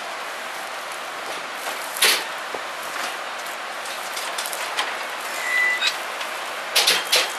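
Steady hiss from a stationary electric locomotive and its coupled carriage, with a sharp click about two seconds in and several more clicks and knocks near the end.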